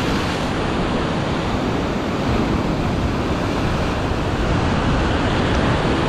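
Big seas surging and breaking against the shore, mixed with strong wind blowing across the microphone: a steady, even wash of noise.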